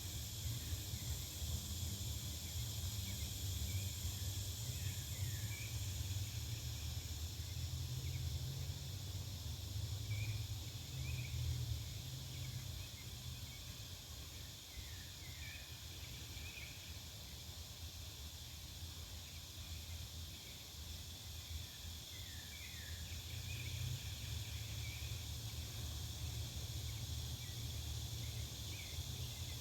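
Residential back-yard ambience: a steady high insect drone with scattered short bird chirps, over a low rumble of distant traffic that swells, eases off in the middle and builds again near the end.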